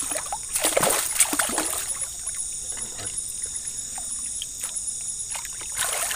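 A hooked fish thrashing and splashing at the water's surface as it is pulled in. The splashing is heaviest from about half a second to two seconds in and comes again near the end.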